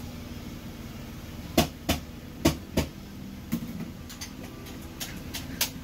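A series of sharp knocks and clicks, about eight in a few seconds and the first four in two quick pairs, over a steady low hum.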